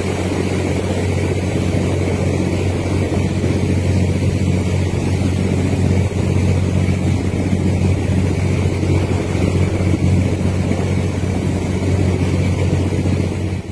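Steady low drone of a riverboat's diesel engine running at cruising speed, with wind noise on the microphone.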